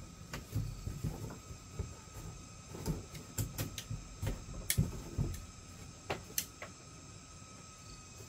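Irregular knocks, thuds and sharp clicks of hands working with building materials, with a cluster of louder clicks in the middle.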